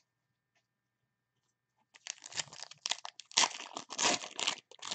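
About two seconds of near silence, then a football trading card pack's wrapper being torn open and crinkled: a run of quick, ragged crackles and rustles.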